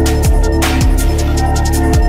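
Electronic background music with a heavy beat: deep bass kicks that fall in pitch and sharp snare hits over held chords.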